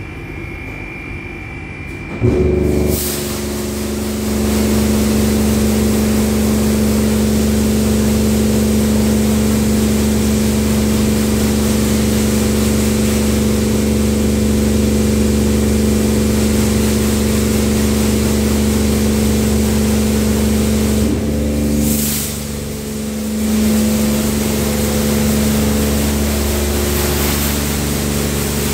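Tammermatic T700 Lux touchless car wash spraying high-pressure water: about two seconds in, its pump starts with a steady hum, and the jets hiss against the car. The spray dips briefly about three-quarters through, then runs on.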